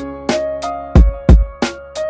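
Instrumental music beat: sharp drum hits every few tenths of a second, with two heavy deep-bass kicks about a second in, under held melodic notes.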